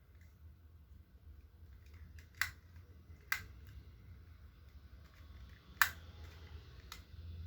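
Four sharp clicks spread over several seconds, the loudest a little before the end, with faint rustling from hands handling a fingertip pulse oximeter and its plastic packaging. A low steady hum runs underneath.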